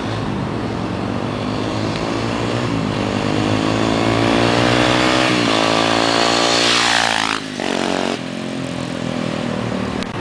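Motorcycle engine with an aftermarket Roncar exhaust being revved: the pitch climbs over a few seconds and rises sharply about six seconds in, then drops back to idle when the throttle is released.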